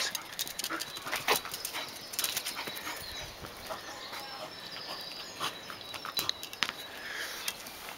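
Scottish terrier making small sounds as it plays about on the grass, with scattered short clicks and rustles.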